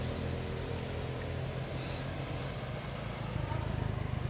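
A small engine running steadily at idle: a low, even hum.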